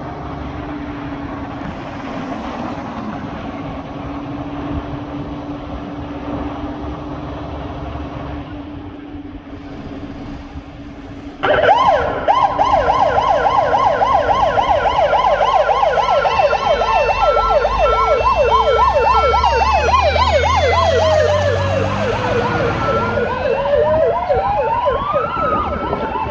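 A fire engine's engine hums steadily at idle, then its electronic siren cuts in abruptly about halfway through with a fast, repeating yelp. A deep engine rumble follows as the truck pulls out, and near the end a second, slower siren wail falls and then rises again.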